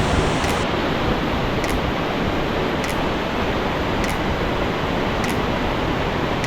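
Steady, even rush of a large waterfall's falling water.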